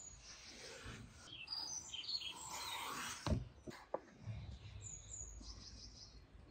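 Small birds chirping in short, high calls. Two sharp taps of a knife against a wooden pastry board come a little past the middle, the first the loudest sound here.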